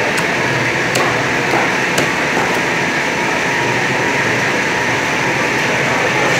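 A cleaver chops into tuna on a wooden block, giving a few sharp knocks in the first two seconds. Behind them is a loud, steady fish-market din.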